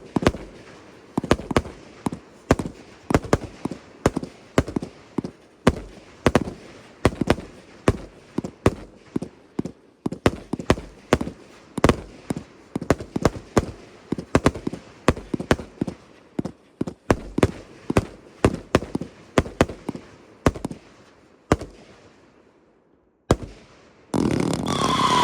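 Illuminati Fireworks multi-shot cake firing a string of sharp shots and bursts, about three a second, which thins out and stops near the end. Just before the end another, louder cake starts up with whistling tones.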